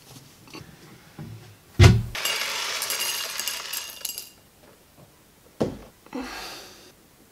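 Dry cereal flakes poured from a box into a ceramic bowl: a dense rattling pour of about two seconds, just after a sharp thump. Near the end comes another thump and a short rush of sound.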